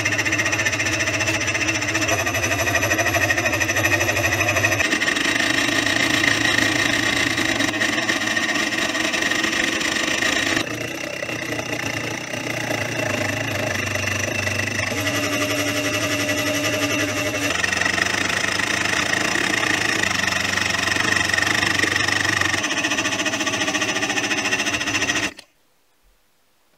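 Small benchtop milling machine running, its end mill cutting into a metal part with a steady motor whine and cutting noise. The tone changes a few times and cuts off abruptly near the end.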